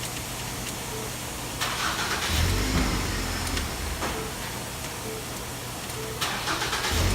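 2010 Ford Escape engine cranked by the starter and firing up, twice: a short crank about a second and a half in that catches and runs, then another crank and catch near the end. This is the key test of a freshly replaced ignition switch. A faint short beep repeats in the background.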